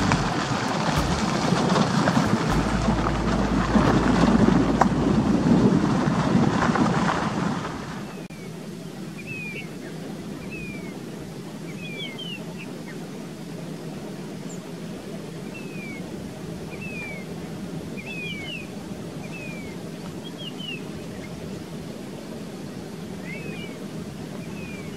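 Loud rushing wind on the microphone, which cuts off sharply about eight seconds in. A quieter open-air background follows, with a bird repeating short gliding chirps every second or two.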